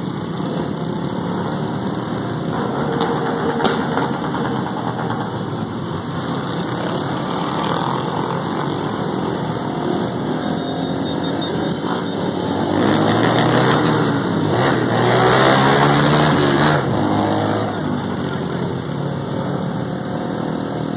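Small motorcycle engines running in a moving group ride, heard from one of the bikes. A few seconds past the middle the engines rev up and grow louder, then settle back.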